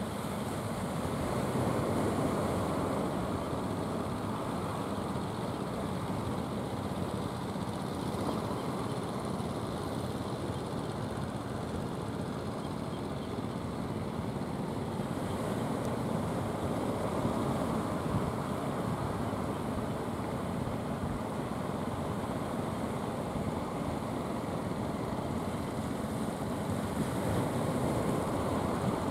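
Steady rushing noise of the sea on the shore, even throughout with a couple of gentle swells.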